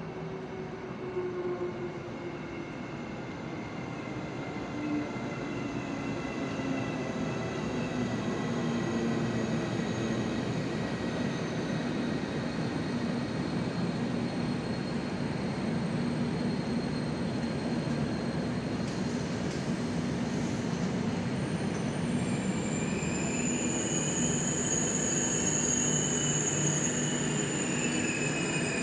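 PKP Intercity EIC Odra passenger train, an electric locomotive hauling coaches, running slowly into the station. The rumble grows louder as it comes in and then holds steady as the coaches roll past. In the last several seconds high, steady squealing from the wheels and brakes sets in as the train slows to stop.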